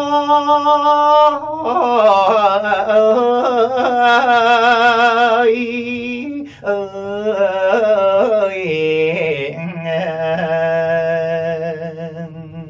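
A man singing Thai lae solo, drawing out long sustained notes that waver with a wide vibrato and carry no clear words. There is a short break about halfway through, and the last note fades away near the end.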